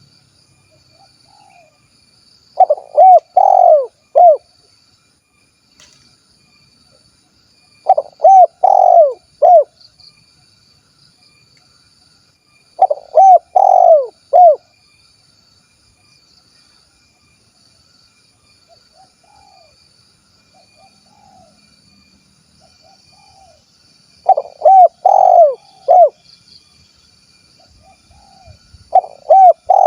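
Spotted dove (tekukur) singing its 'kuk 1' coo: five phrases of about four short, arched notes each, repeated every five seconds or so with a longer pause in the middle. Fainter coos sound between the phrases over a steady, faint, high insect drone.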